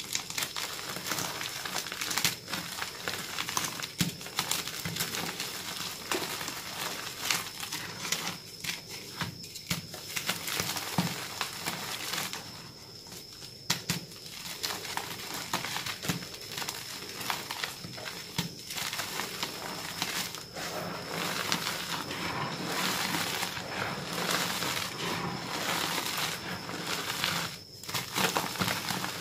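Reformed gym chalk (powdered chalk pressed into large molded blocks) crushed and crumbled by hand over loose chalk powder: continuous dry, crunchy crumbling full of small cracks. It breaks off twice briefly, once a little before halfway and once near the end.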